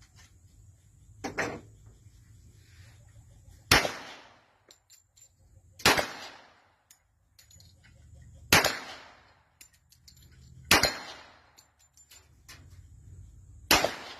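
Five pistol shots fired singly, two to three seconds apart, each a sharp crack with a short decaying tail. A fainter knock comes about a second in.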